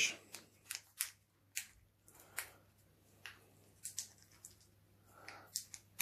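Faint, scattered clicks and small rustles of something being handled, about a dozen short ticks spread unevenly across a few seconds.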